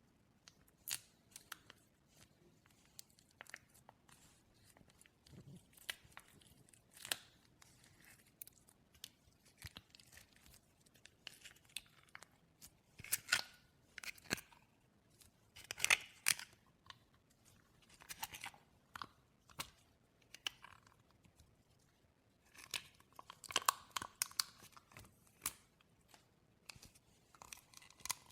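Glossy slime being squished and poked by hand, giving irregular sticky clicks and crackling pops, with thicker clusters about halfway through and near the end.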